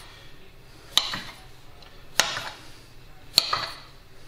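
Chef's knife cutting rolled cinnamon-roll dough into slices, the blade knocking on the hard countertop at the end of each cut: three sharp taps a little over a second apart.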